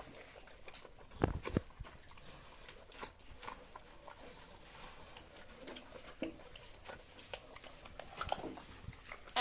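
Pigs moving about a pen: scattered knocks and scuffs, a loud pair of thumps about a second and a half in, and a few short, faint grunts.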